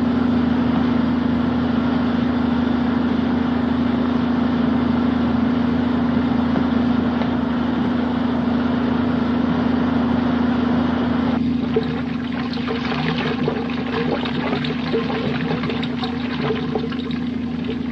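A steady machine hum under a rushing, water-like noise; about eleven seconds in the rushing thins out into an irregular crackling while the hum carries on.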